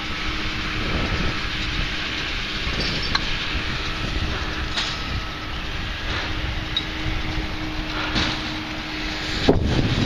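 Steady rumble and wind noise of a vehicle moving, with a faint steady engine hum under it.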